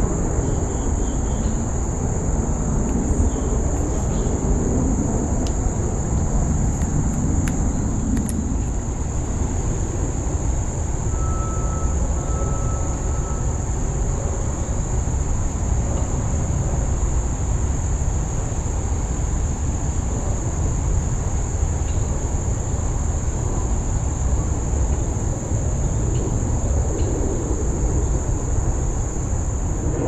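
Steady, unbroken high-pitched insect trill over a constant low rumble.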